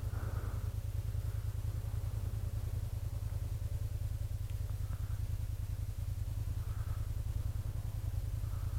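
Motorcycle engine idling, a steady low rumble.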